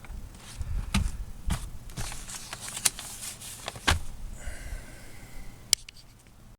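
Irregular clicks, taps and scraping from test probes and fingers handling a small transistor radio's circuit board, with about half a dozen sharper clicks.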